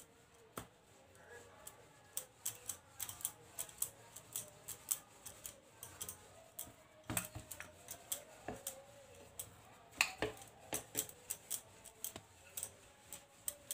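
Light, irregular clicking and tapping, several times a second, as a disc of dough is rolled out with a wooden rolling pin on a board, with glass bangles on the rolling wrist clinking.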